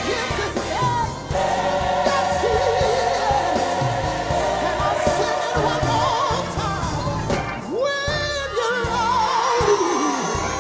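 Live gospel music: a woman soloist singing with strong vibrato into a microphone, backed by a large mass choir.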